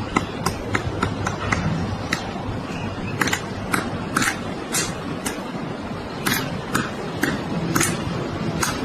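Woodpecker hammering its beak into a thick tree trunk to drill a hole, single sharp knocks at an uneven pace of about two to three a second, over a steady hiss of background noise.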